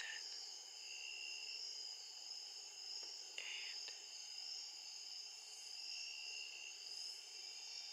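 Evening insect chorus of steady, high-pitched trilling, with a few shorter calls coming and going over it.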